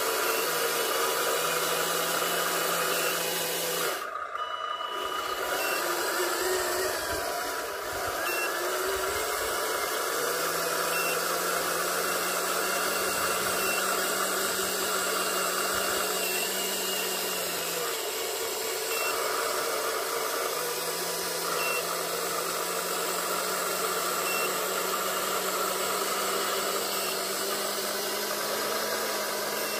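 Small electric motors and gearboxes of radio-controlled model trucks whining as they crawl through mud under load, a low hum starting and stopping with the throttle and a wavering whine over a steady hiss.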